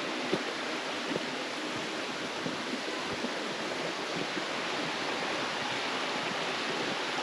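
A small creek rushing over sandstone rocks: a steady, even wash of running water, with a few faint knocks in the first second or so.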